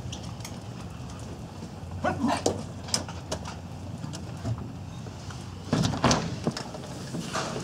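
A few light clicks and knocks, then a door's knob and latch turning and the door opening about six seconds in.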